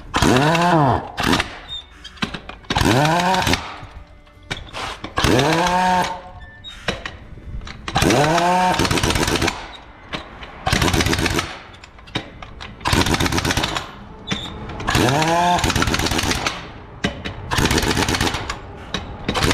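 Pneumatic impact wrench spinning tractor wheel nuts in short repeated bursts, about one every two seconds, each rising in pitch as the air motor speeds up and falling as it slows.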